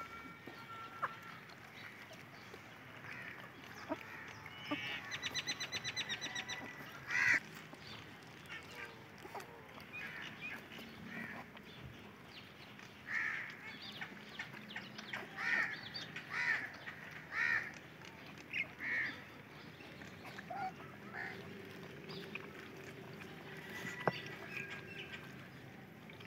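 Short animal calls: a fast rattling run of them about five seconds in, then a string of separate calls from about thirteen to nineteen seconds in.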